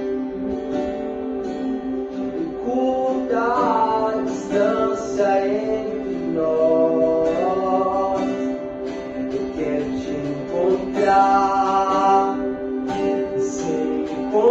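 Acoustic guitar playing sustained chords, with a voice singing a melody over it from about three seconds in.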